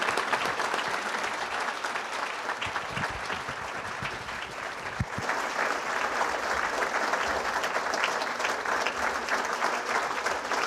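Audience applauding, a dense, steady clapping that eases slightly and then picks up again about halfway through. A single low thump comes about five seconds in.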